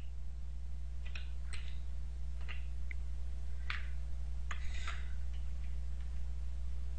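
About half a dozen scattered, faint clicks from a computer keyboard and mouse being worked, over a steady low hum.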